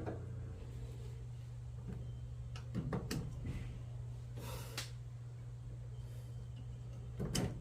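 Small clicks and rustles of hands working loose the drain pump's connections on a front-load washing machine, a few times over, over a steady low hum.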